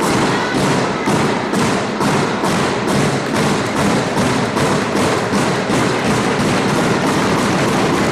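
Spectators beating a steady rhythm, even thumps about two a second, keeping on without a break.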